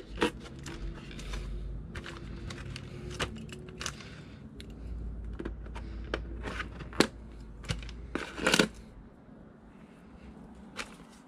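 Handling noises from a small plastic Axial 1/24-scale Ford Bronco RC crawler being turned over in the hands: scattered light clicks and rattles of its chassis, wheels and suspension. There is a sharp click about seven seconds in and a brief, louder rustle just after.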